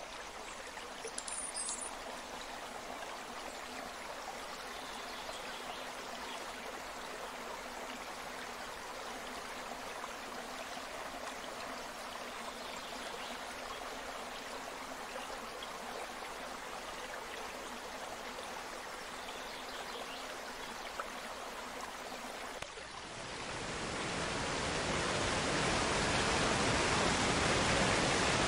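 Shallow stream running over bare rock, a steady rush of water. About 23 seconds in it switches suddenly to a louder, closer rush of water pouring over a rock edge.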